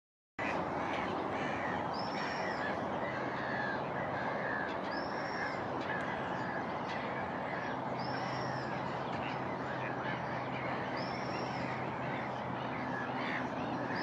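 Many wetland birds calling over a steady background noise, with a short, high, arching call repeated about every three seconds.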